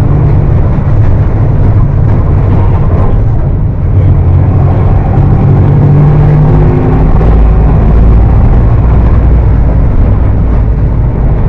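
Mercedes-Benz OF 1418 bus's diesel engine running loud through its exhaust, with a deep, steady note. It eases off briefly about four seconds in, then pulls again, its note slowly rising.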